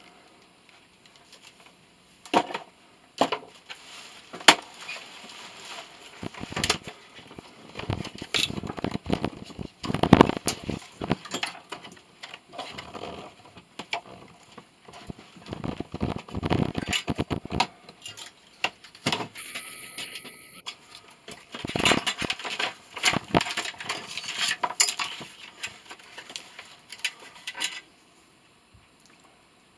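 Metal scrap being taken apart by hand: a string of clanks and knocks mixed with scraping and rattling of metal parts, starting about two seconds in and stopping near the end.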